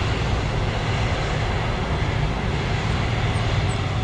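Jet engines of an Air Canada wide-body twin-jet airliner moving along the runway: a steady, loud jet noise with a deep rumble underneath.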